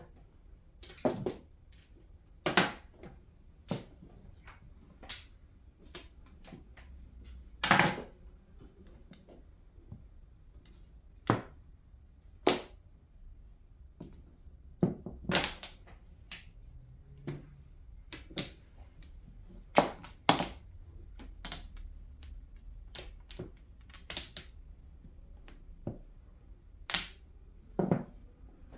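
Mahjong tiles clacking as they are drawn, set down and discarded on the table: sharp, irregular clacks about one to two seconds apart, some much louder than others.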